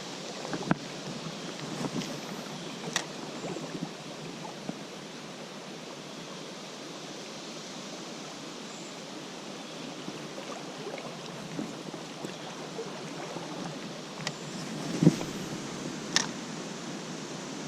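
Steady rush of a flowing river, with a few scattered sharp clicks and knocks, the loudest two near the end.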